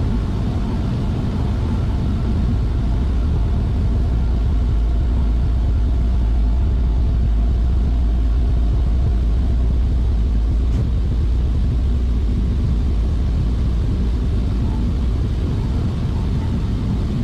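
Industrial machinery running steadily: a loud, even low drone with a faint steady whine above it.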